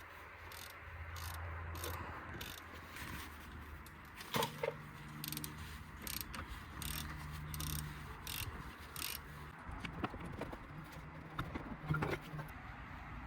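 Metal tool clicks and knocks as a 9 mm hex bit works the brake caliper guide bolts loose, with a faint low hum coming and going.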